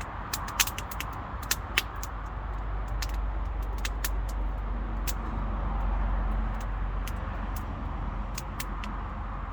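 Campfire crackling, burning wood giving off irregular sharp pops, the loudest few in the first two seconds. Under it runs a steady low rumble.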